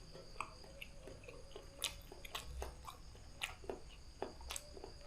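A person chewing and eating close to the microphone: wet mouth sounds with scattered sharp clicks and smacks, a few of them louder.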